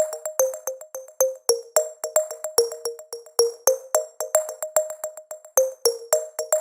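Electronic music: a quick melody of short synthesizer notes, several a second, each starting sharply and dying away fast.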